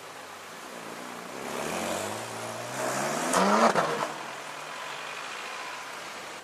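Supercar engine revving as the car accelerates away. The pitch climbs to a loud peak about three and a half seconds in, then drops and the sound fades as the car moves off.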